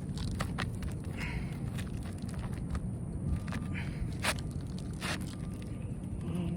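Scattered taps, knocks and scrapes of hand roofing work on asphalt shingles, with two louder sharp knocks about four and five seconds in, over a steady low rumble.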